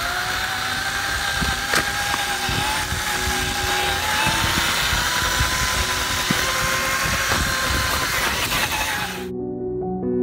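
Radio-controlled crawler truck driving through dry leaves: its electric motor and gears whine, slowly rising in pitch, over the rustle and crunch of the tyres in the leaves. The sound cuts off abruptly about nine seconds in, leaving only background music.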